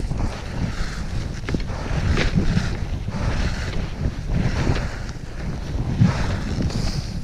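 Strong blizzard wind buffeting the microphone in gusts: a heavy, uneven low rumble with a rushing hiss on top.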